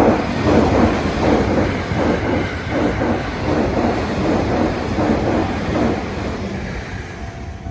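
Electric train passing over a level crossing at speed: a loud rush that starts suddenly, with the wheels clattering over rail joints in an even rhythm of about two to three beats a second, then easing off. Near the end, the crossing's warning bell can be heard again as the train fades.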